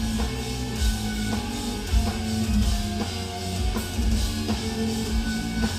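Heavy metal band playing live: heavily distorted, low-tuned eight-string guitars riffing in step with a drum kit's kick drum hits.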